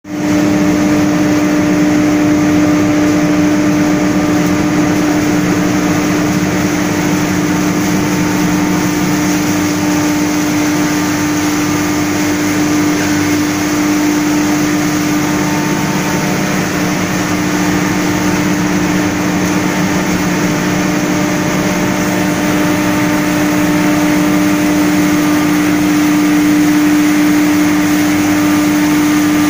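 Straw bale crushing and grinding machine, a rotary tub cutter and hammer mill in one, running steadily as straw is fed in. It makes a loud, constant hum with an even rushing noise over it.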